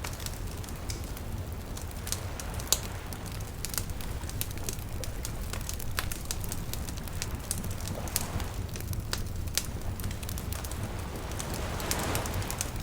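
Wood campfire burning: frequent sharp crackles and pops over a steady low rumble of flame. A soft hiss swells up about eight seconds in and again near the end.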